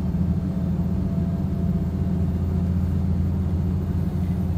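MAN truck's diesel engine and road noise heard inside the cab while driving, a steady low drone.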